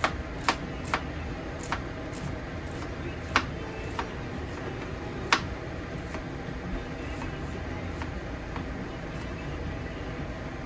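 Kitchen clatter: a scattering of sharp taps and clicks, most of them in the first six seconds and fainter ones later, over a steady low hum.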